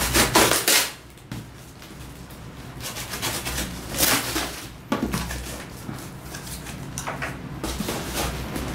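Cardboard box being cut open with a small knife along its packing tape, then its flaps pulled back and handled: several short scrapes and rustles of tape and cardboard.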